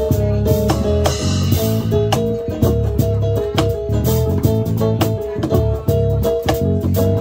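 Live African band playing an instrumental passage: a repeating plucked guitar figure over electric bass, with cajón and cymbal percussion keeping a steady beat.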